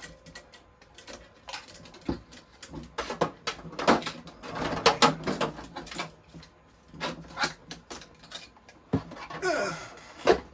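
Irregular clicks, knocks and rustling of packaging and parts being handled on a table, busiest in the middle and with a longer rustle near the end.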